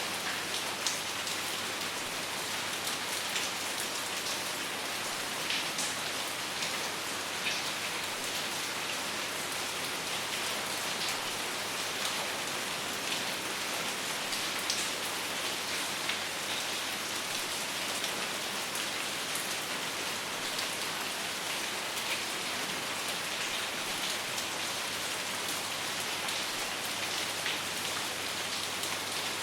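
Steady rain falling: an even hiss with many scattered, sharper ticks of individual drops striking a surface.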